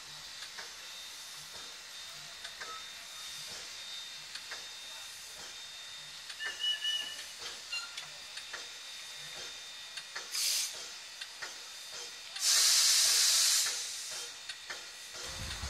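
ČSD class 475.1 steam locomotive 475.111 standing and letting off steam: a faint steady hiss, a brief burst of hiss about ten seconds in, then a louder hiss lasting just over a second. A low rumble begins right at the end.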